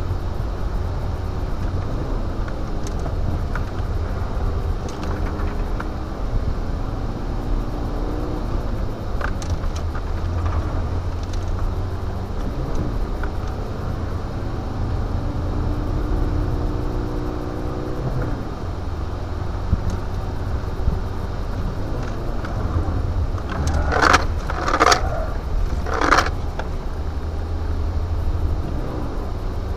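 Renault Clio 1.9 D's diesel engine under hard acceleration, heard from inside the cabin, its pitch rising again and again as it climbs through the revs and gear changes. About 24 seconds in come three short loud bursts of noise close together.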